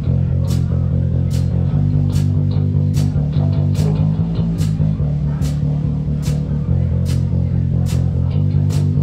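Live rock band's instrumental intro: an electric bass guitar plays a riff of low repeating notes, with guitar, over light cymbal ticks keeping time about one and a half times a second.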